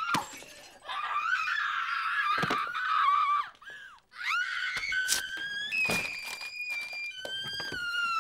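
High, wailing vocal with long held notes that slide and step between pitches, broken by a short pause about four seconds in.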